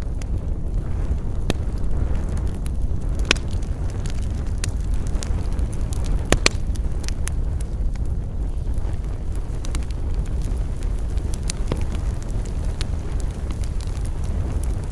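Wood campfire burning, with a steady low rumble and scattered sharp crackles and pops. The loudest pop comes about three seconds in, and a quick double pop a little past six seconds.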